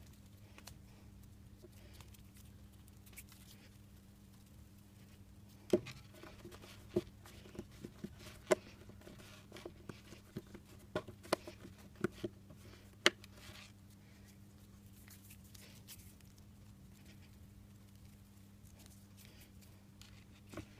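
Hands working modelling dough on a wooden tabletop: a run of sharp taps and knocks against the table for about seven seconds, starting about six seconds in, then quiet handling of the dough. A steady low hum sits underneath.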